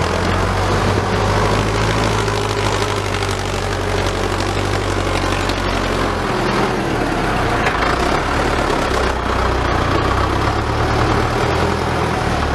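Diesel farm tractor engine running steadily as its front blade pushes a pile of soil, the low engine note shifting about six seconds in as the blade takes the load.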